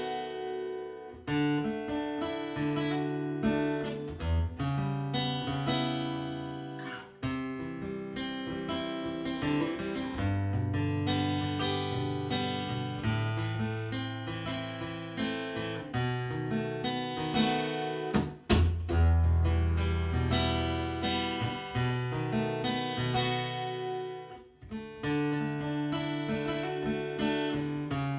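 Yamaha APX3 acoustic-electric guitar played through a PA, strummed and picked chords that change every second or two, with two brief pauses.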